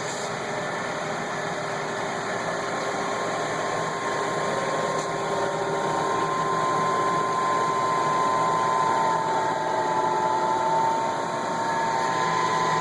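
Berco cylindrical grinder running with its wheel and work spindle turning: a steady machine hum with a high whine that grows louder about five seconds in.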